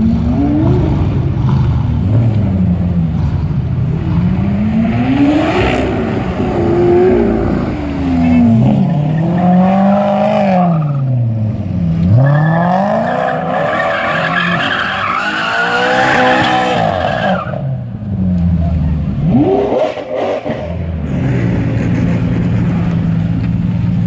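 Maserati GranTurismo's V8 revving up and down over and over as the car drifts, with tyres squealing for several seconds in the middle. The engine settles to a steady idle near the end.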